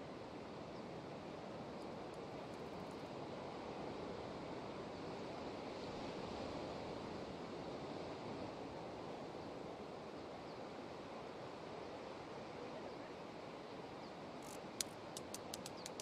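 Distant ocean surf breaking on a rocky shore below a cliff: a steady wash that swells a little in the middle. Near the end comes a quick run of about seven sharp clicks.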